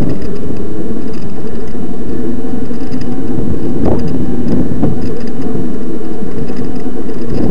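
Electric mountain bike riding up a dirt trail with the motor at about a quarter power while pedalling: a loud, steady low rumble of riding noise, with a couple of sharp knocks from bumps around four and five seconds in.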